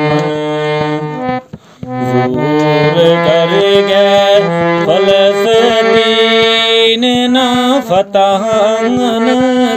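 Music: a man singing long, drawn-out wavering notes over a sustained reed-instrument drone, with a brief break about a second and a half in.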